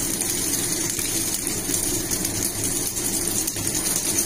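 Spiral pasta sizzling steadily in a hot cast-iron skillet, an even hiss over a steady low hum.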